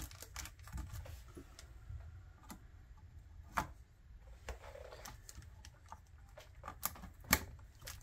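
Scattered small plastic clicks over light handling noise, the two loudest about three and a half and seven seconds in: the latches of a motherboard's memory slots being flipped open.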